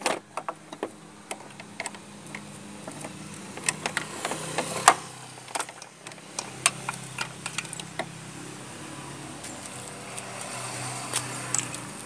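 Scattered metallic clicks and knocks as a Honda Civic's clutch master cylinder and its fittings are handled and pulled free from the firewall. The sharpest knock comes a little under five seconds in, over a steady low hum.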